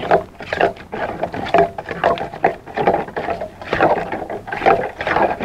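A spoon stirring and scraping a wet seasoning mix in a stainless steel bowl, in quick, irregular strokes.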